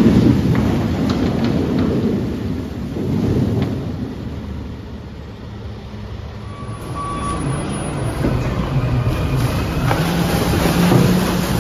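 A load of garbage slides off a truck into a transfer-station pit with a low, rumbling rush that fades by the middle. Later a truck engine runs with a steady hum as another load of bagged garbage tips out.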